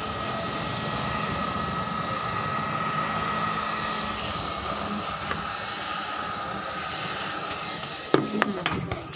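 Hot-air heat gun running steadily, a constant whooshing hiss with a steady whine, blowing on a speaker's dust cap to soften its glue. Near the end it is switched off with a few clicks and its fan winds down.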